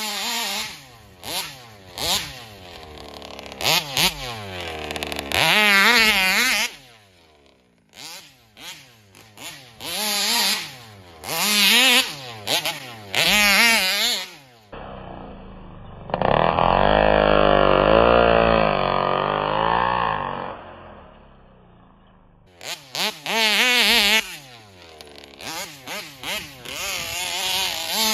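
Two-stroke gas engine of a large-scale Taylor RC 71 Supreme RC car revving up and down again and again as it is driven hard. Midway there is one longer, steadier and duller run before the short revs start again.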